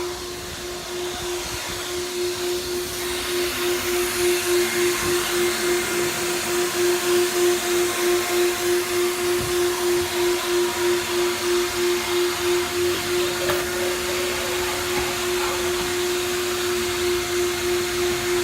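Vacuum cleaner running, its steady motor whine over a rush of air, as it cleans a car's interior. From about two seconds in, its loudness swells and dips about twice a second.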